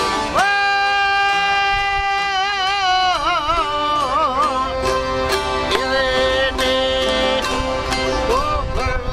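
Albanian folk ensemble playing: a male voice holds a long high sung note that breaks into wavering ornaments, over accordion, plucked çifteli and lute strings, and regular frame-drum beats.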